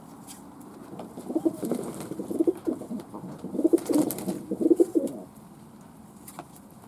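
Domestic pigeon cooing: a run of low, warbling coos lasting about four seconds, then stopping.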